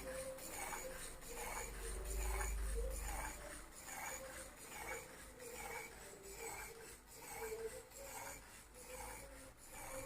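Plastic mechanism of a 3D-printed kinetic butterfly sculpture, rubbing and clicking in a steady rhythm of about three strokes every two seconds as it flaps the wings.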